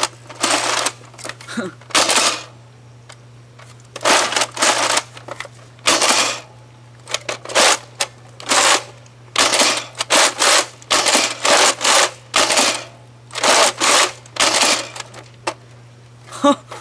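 Nerf Mega Centurion's long priming handle being pulled back and pushed forward again and again: a run of plastic sliding strokes, with a pause of about a second and a half after the first few, then coming faster.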